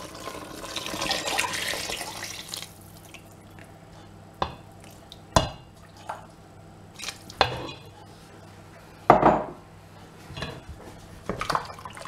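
Beef stock poured from a jug into a large stainless-steel stockpot of vegetables and red wine, a liquid splash that swells and fades over the first two and a half seconds. Then a spoon stirs the pot, knocking against the steel sides several times.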